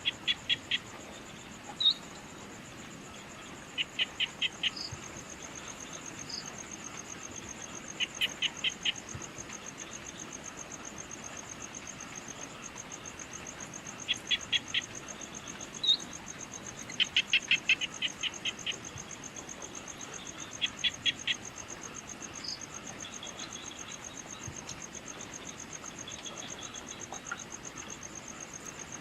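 Evening nature ambience: a steady high-pitched insect trill throughout, over which an animal gives groups of four or five short sharp calls every few seconds, with a few single chirps in between.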